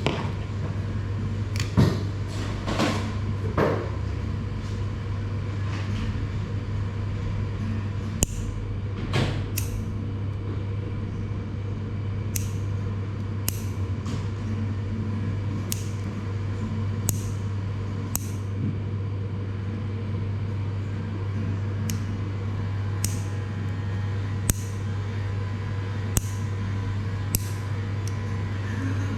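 Electric hair clippers humming steadily through a haircut, with a few knocks early on and short crisp snips or clicks every second or so from about twelve seconds in.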